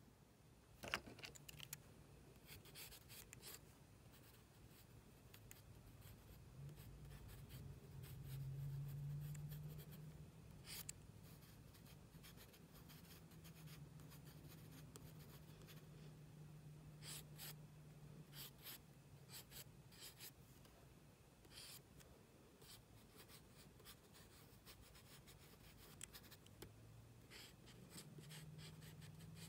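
Faint scratching of a mechanical pencil's lead drawing short strokes on a card, with a sharp tap about a second in. A low hum runs underneath for several seconds in the first half.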